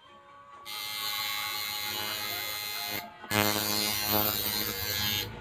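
Electric tattoo machine buzzing in two runs, with a short break about three seconds in.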